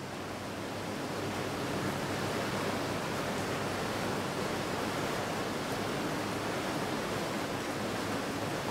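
BlueWhale BW-07 hot tub running with its jets on, the water churning and the arcing fountain jets splashing back into the tub: a steady rushing of water.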